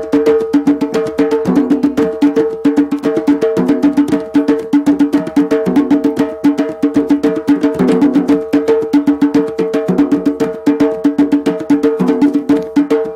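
Live drums played in a fast, steady rhythm of several strokes a second.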